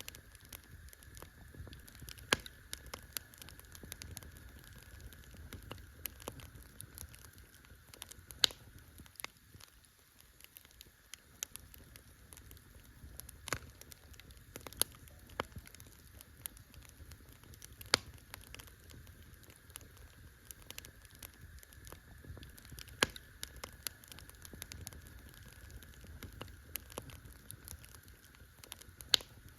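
Campfire crackling: a steady run of irregular small snaps and pops, with a few louder sharp pops every few seconds, over a faint low rumble.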